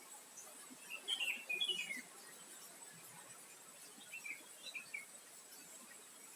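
A small bird calling: a quick run of short, falling chirps about a second in, then a softer group of chirps around four seconds in, over a faint steady high-pitched tone.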